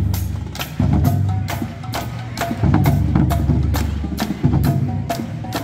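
Marching band drumline playing a street cadence: sharp clicks about four times a second over a steady pounding of bass drums.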